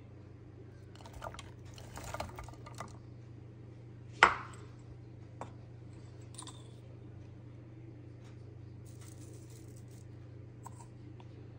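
Quiet kitchen handling as diced onion is tipped from a bowl onto raw meat in a nonstick pot: light rustles and taps, then one sharp ringing clink about four seconds in, with a few soft ticks after, over a faint steady hum.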